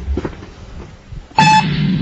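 A short electronic beep sounds once, a little over a second in, and a steady low hum starts with it.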